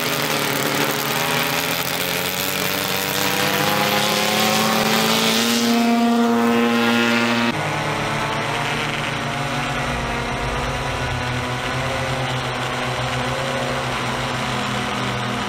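VolJet VT10G VTOL drone's motors and propellers running, their pitch rising steadily for about seven seconds. The sound then switches abruptly to a steadier, lower hum of the propellers turning.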